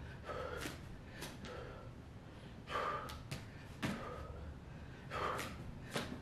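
A man breathing hard through a set of push-ups: repeated sharp, effortful exhales and gasps, about one every second or so, the strongest about three and five seconds in.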